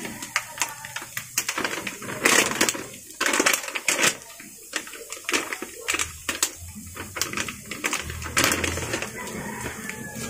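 Chicken nuggets frying in hot oil in a pan: a sizzle full of irregular crackles and pops from the spattering oil.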